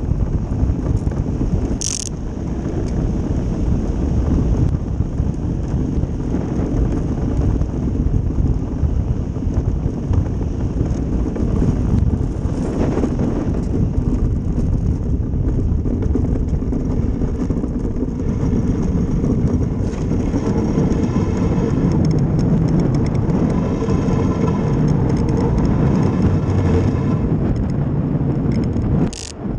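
Ice boat running under sail, its runners rumbling and rattling over the lake ice and shaking the wooden hull in a steady, loud noise, with a sharp tick about two seconds in.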